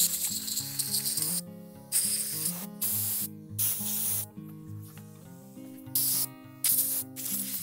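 Compressed air from a blow gun blasting through a Ford FE rocker shaft to clear out its bore and oil holes, fired in several short bursts of hiss.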